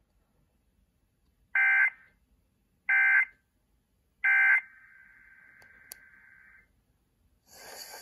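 Three short bursts of Emergency Alert System SAME digital data tones from a Sangean HD radio's speaker, each about half a second long and roughly a second and a half apart. They are the end-of-message code that closes the station's weekly test alert. A faint steady tone lingers for about two seconds after the third burst.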